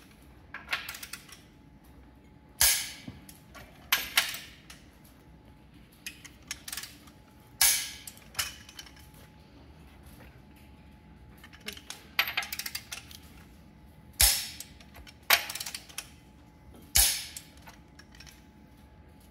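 Click-type torque wrench snapping over as the main bearing cap bolts of a John Deere 4020 engine are pulled to 150. About six sharp snaps, with bursts of quick ratchet clicking in between as the wrench is reset.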